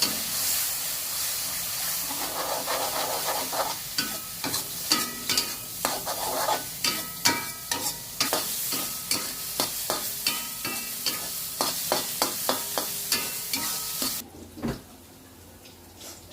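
Cincalok with egg and chilli sizzling in a hot pan while a spatula stirs it, with many quick clicks and scrapes against the pan. The sizzling cuts off suddenly near the end, followed by a single knock.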